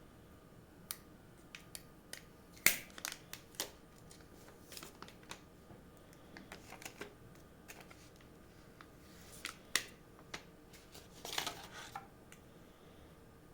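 Hands handling a smartphone's retail box and packaging: scattered sharp clicks and taps with a few short rustles, the loudest a single click a little under three seconds in.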